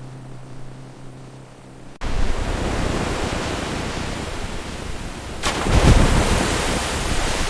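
Loud, steady rushing of water, like heavy rain or a waterfall, starting abruptly about two seconds in after a faint low hum, and swelling briefly about six seconds in.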